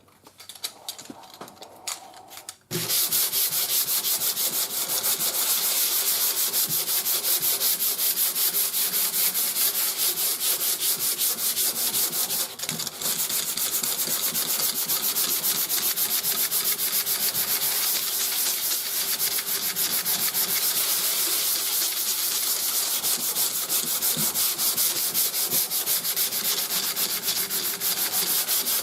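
Sandpaper sanding primer surfacer on a car fender: a steady sanding noise that starts about three seconds in and carries on, with a brief break near the middle.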